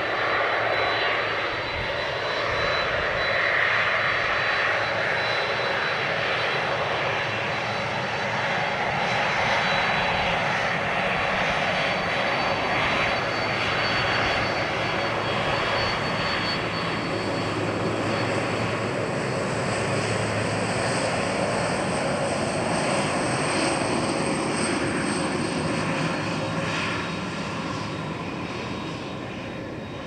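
Boeing 767 airliner's twin jet engines running at taxi power as it rolls slowly past: a steady rush of jet noise with thin high whining tones, fading near the end as it moves away.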